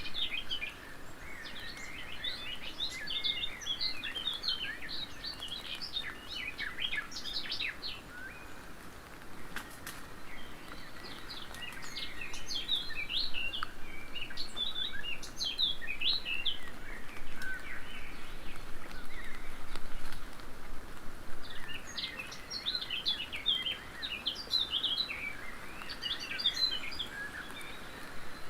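A songbird singing in three long bouts of quick chirping notes, each lasting several seconds with pauses of a few seconds between, over a steady hiss of background noise.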